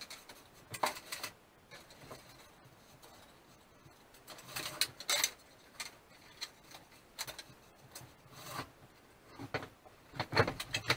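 Short, scattered rubbing and scraping noises, a few seconds apart and bunched toward the end, from hands working a 1958 McCulloch Mac 35A chainsaw's pull-start, which will not reset because its recoil spring coil has come off its track.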